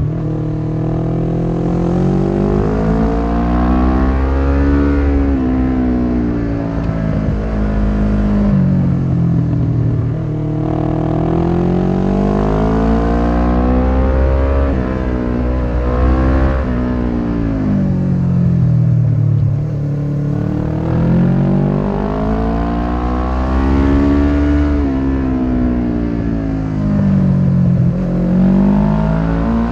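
1993 Suzuki GS500E's air-cooled parallel-twin engine through a Takkoni slip-on exhaust with its dB-killer fitted, heard from on the bike while riding hard: the exhaust note climbs in pitch under acceleration and falls off again several times as the rider accelerates out of bends and rolls off into them. A low wind rumble runs underneath.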